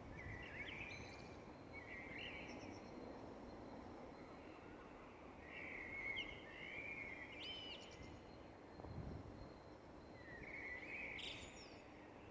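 Songbirds singing at dawn in about four short, warbling phrases, over a steady low background rumble.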